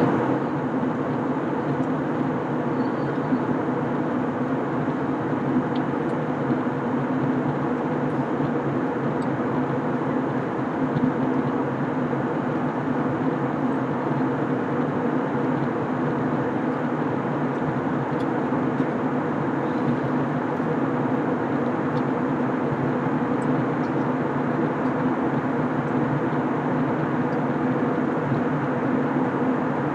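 Airbus A321 cabin noise in flight, heard from a seat in the forward cabin: a steady drone of engines and rushing air with a constant low hum.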